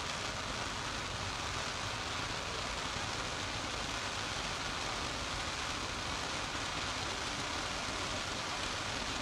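Distant fireworks giving a steady, rain-like crackling hiss of sparkling stars, with no distinct bangs.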